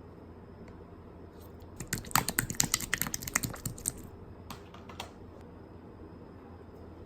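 Clear slime being pressed and worked by hand, giving a quick run of crisp clicking pops for about two seconds, then two more pops.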